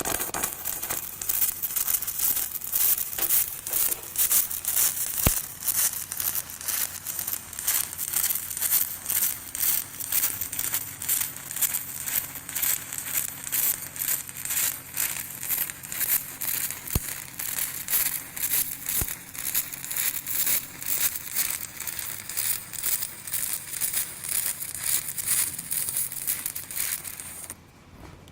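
Aluminum stick electrode arc welding: a steady, loud crackle and sputter that swells and dips rapidly and cuts off suddenly near the end as the arc is broken. The welder is on a pulsed stick program at 2.2 hertz, on aluminum preheated to about 250 degrees.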